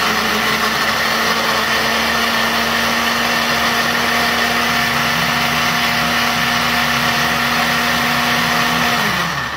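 Trio electric countertop blender running steadily, its motor whirring as it purées prawns. It is switched off about 9 seconds in and the motor spins down.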